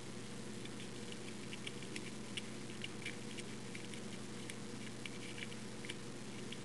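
Faint, irregular light clicks and scratches of a lock pick working the pins inside a Master Lock No. 3 padlock while it is being picked.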